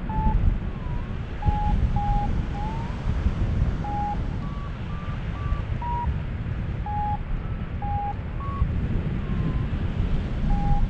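Wind rushing over the microphone in flight, with a paragliding variometer giving short beeps at shifting pitch, irregularly spaced, as it registers lift.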